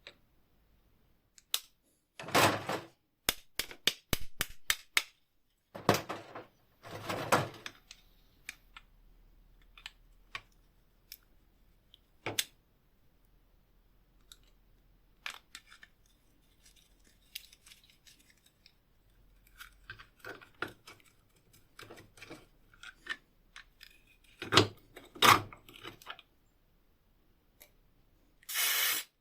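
Metal hand-tool parts of old wire cutters being handled and worked: scattered sharp clicks and clinks with several short scraping strokes, and a burst of hiss near the end.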